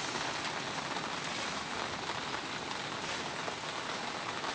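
Heavy rain falling steadily, a dense even hiss of countless small drop impacts.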